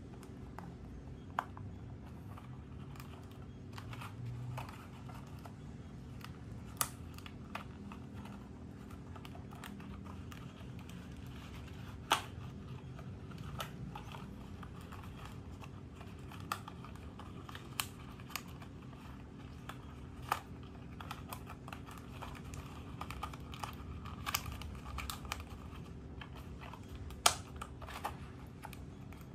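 Pleated paper lampshade rustling and crinkling as it is handled and fitted onto a wire frame, with scattered sharp clicks and taps from the paper and wire.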